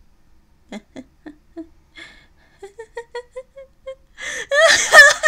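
A woman's voice laughing in character as a gloating villain: short, soft chuckles that climb in pitch, breaking into loud laughter about four seconds in.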